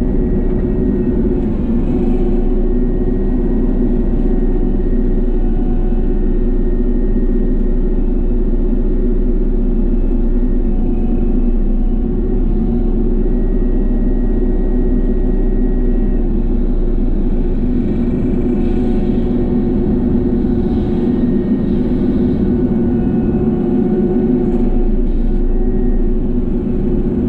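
Small excavator's diesel engine running steadily under hydraulic load, driving a Bushmaster brush-cutter head mowing heavy brush. A constant engine drone with a deep rumble underneath.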